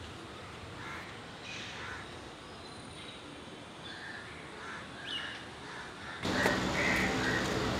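Street ambience with crows cawing now and then. About six seconds in it cuts to a louder background with a steady low hum.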